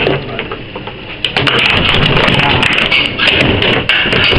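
Foosball game in play: sharp clacks of the ball and the plastic players striking, many in quick succession over a noisy background, thicker after about a second.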